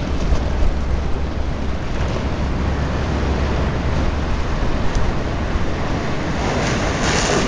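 Wind buffeting the microphone: a steady low rumble with hiss, the rumble easing a little in the last couple of seconds.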